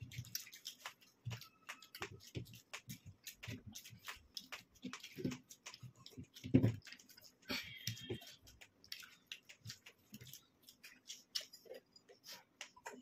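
Faint, rapid mouth and hand sounds of people eating steamed momos and a burger: chewing, lip smacks and small clicks, with one louder thud about six and a half seconds in.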